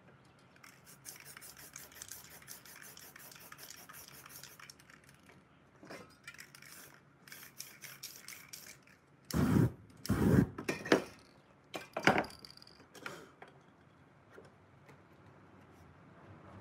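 Aerosol spray-paint can in use. First comes a few seconds of quick, light ticking, then several short, loud bursts of spray near the middle.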